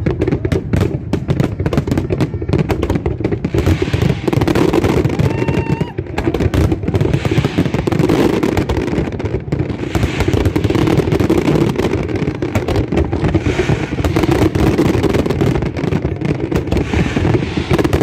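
Fireworks display going off in a dense, continuous barrage of rapid bangs and crackling, with no pause.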